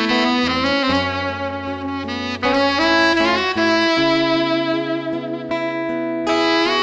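Saxophone playing a melodic solo of held and sliding notes over a band backing of guitar and bass, in an instrumental passage of a Kuy-language pop song.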